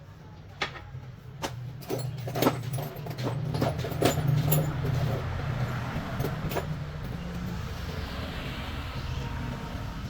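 An engine running with a low, steady hum that gets louder about two seconds in. Irregular sharp metal clanks and knocks sound over the first six or seven seconds.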